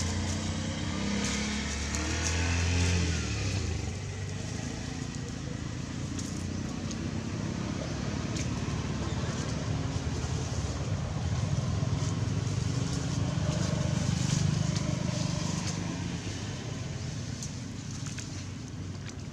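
Engine noise of passing motor vehicles, swelling near the start and again past the middle, with scattered faint clicks.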